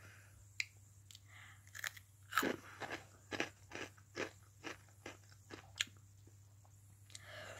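Close-up chewing of a Flaming Hot Cheeto: a string of short, irregular crunches, two or three a second, as the crunchy corn puff is bitten and chewed.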